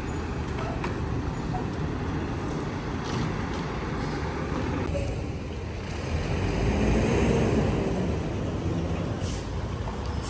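Road traffic on a city street: cars and trucks running past in a steady rumble that swells about six to eight seconds in.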